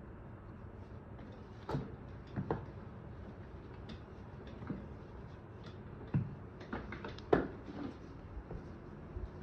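A few light knocks and scuffs from handling sneakers and shifting feet on a tiled floor, the loudest about seven seconds in, over a steady background hiss.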